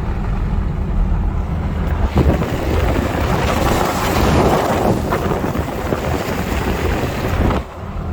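Chevrolet Camaro ZL1 driving on a snow-covered road: a steady low rumble of engine and tyres. About two seconds in, a loud rushing hiss swells over it, peaks mid-way and cuts off suddenly near the end.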